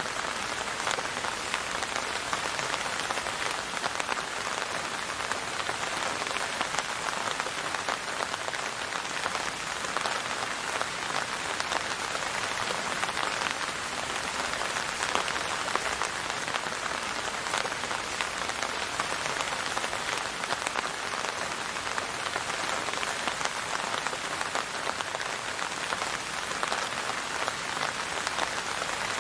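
Steady rain: a dense, even hiss of falling rain with many small drop ticks in it, unchanging throughout.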